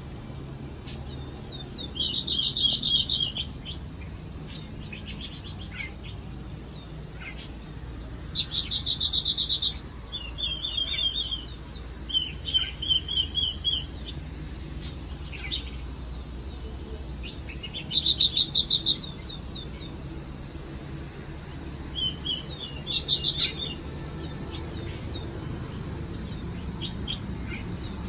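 Small songbirds in an aviary chirping and singing: about seven loud bursts of quick repeated notes, each lasting about a second, with short single chirps scattered between them.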